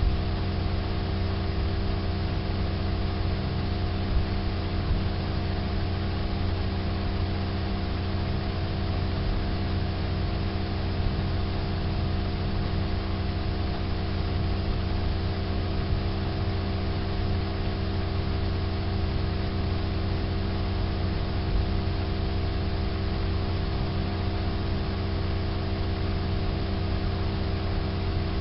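Steady machine-like hum: a low drone with several steady tones above it over an even hiss, unchanging throughout.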